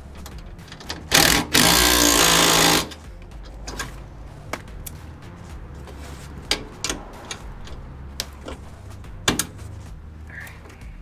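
A DeWalt 20V cordless impact driver hammering a bolt up into a trailer's steel frame in two loud bursts starting about a second in, the second lasting about a second. After that come scattered light metal clicks and clanks of a wrench on the bolt and nut.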